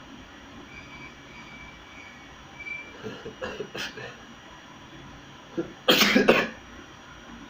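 A person sneezing once, sudden and loud, about six seconds in. A few short, catching breaths come before it, around three to four seconds in.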